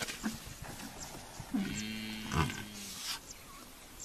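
African buffalo bawling: one long call of about a second and a half at a steady pitch, with a shorter falling call overlapping it midway.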